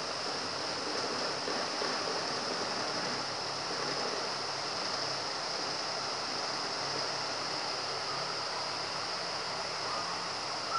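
Rain falling steadily, an even unbroken hiss.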